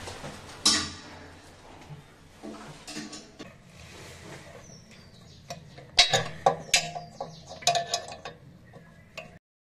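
Small metal clicks and clinks of nuts being threaded and tightened by hand onto the mounting bolts under a ceramic wall-hung basin, busiest about two-thirds of the way through, then cutting off suddenly.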